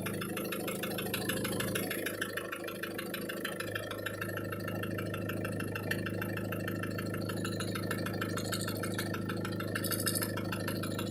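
Car engine idling with a fast, even knock in time with the engine.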